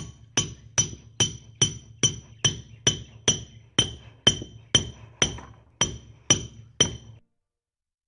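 Claw hammer driving a nail into wood: even, steady strikes a little over two a second, each with a bright metallic ring, stopping about seven seconds in.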